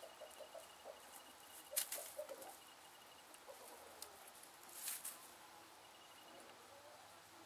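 Faint rustling of straw bedding as a Belgian Hare rabbit moves and noses about in it, with two louder rustles about two and five seconds in.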